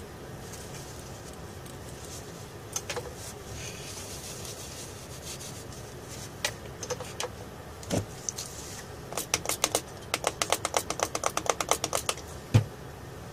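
Small objects being handled on a workbench, making light clicks and taps over a steady hiss. There are a few single knocks, and late on a quick, even run of about seven clicks a second lasting about three seconds.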